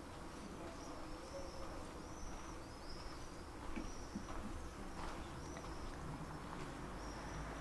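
Short high chirps repeated one or two times a second, insect-like, over a low steady rumble.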